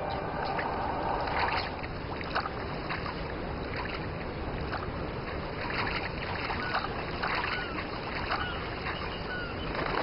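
Waterbirds calling over a wetland: many short calls and chirps, more frequent in the second half, over a steady rushing background.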